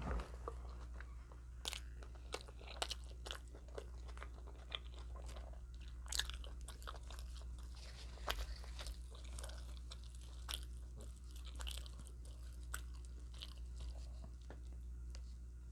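Close-up eating sounds: a person biting and chewing crunchy food, with many sharp, irregular crunches, most likely Doritos tortilla chips. A steady low hum runs underneath.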